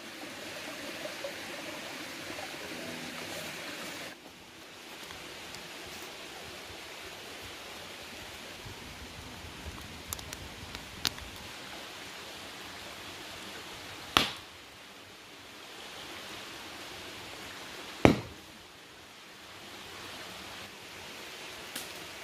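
A stone slab heated over a wood fire bursting twice with sharp, loud bangs about four seconds apart: the rock cracking and exploding from the fire's heat. Small crackling pops and a steady hiss come from the fire.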